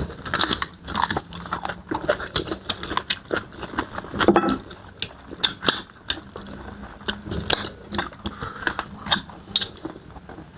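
Close-up eating sounds: biting and chewing, with many irregular wet clicks and small crunches. A brief voiced sound about four seconds in.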